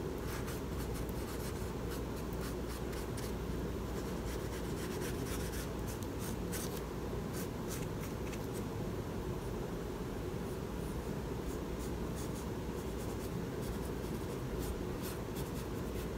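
Paintbrush bristles stroking acrylic paint onto a wooden cutout, a soft, irregular scratchy brushing.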